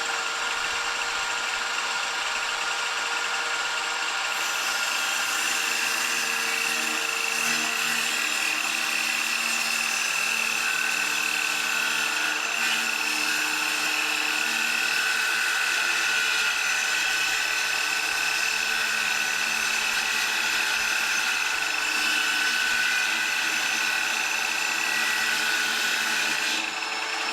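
A small electric motor running steadily, a held whine over a hiss, its pitch shifting slightly now and then.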